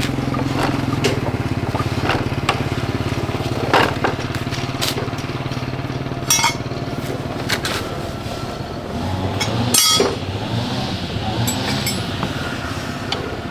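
Motorcycle engine running steadily, fading out about halfway through, with several sharp metallic clinks and knocks from work on the bike.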